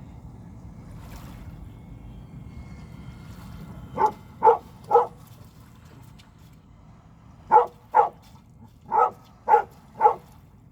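A dog barking in two bouts: three quick barks about four seconds in, then five more a couple of seconds later. A low, steady rush of wind or water sits underneath.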